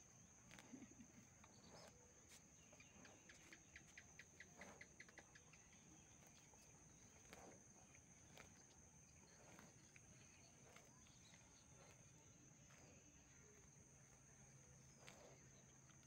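Near silence: a faint, steady, high-pitched insect trill, with scattered soft clicks and tearing sounds of a cow cropping grass.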